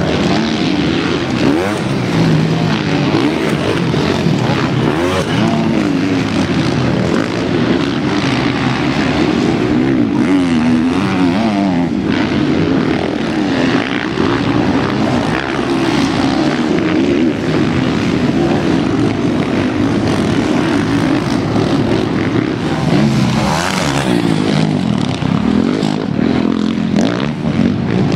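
Several motocross bikes' engines running at race speed, overlapping, their pitch rising and falling as the riders open and close the throttle through corners and jumps.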